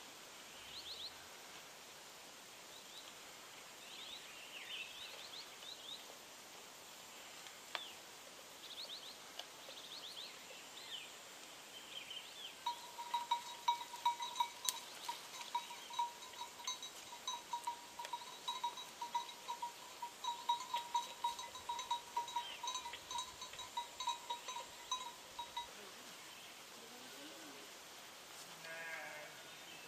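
Short high chirps in the first half, then a rapid pulsing tone lasting about thirteen seconds, the loudest sound here, and a goat starting to bleat near the end.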